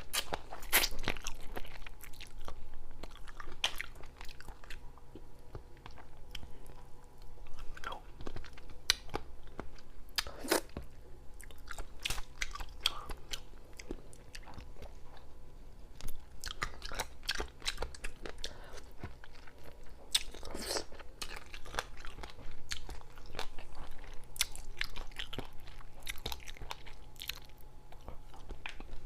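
Close-miked eating: irregular crunching bites and chewing of food, with sharp crackles scattered unevenly throughout.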